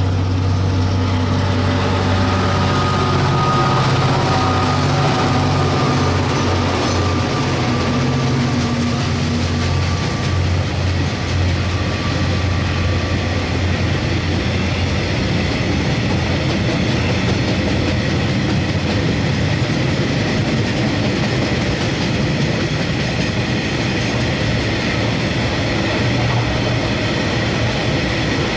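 Diesel-electric locomotive passing under power, its engine note strong for about the first ten seconds and then fading, followed by the steady rolling noise of the train's wagons going by.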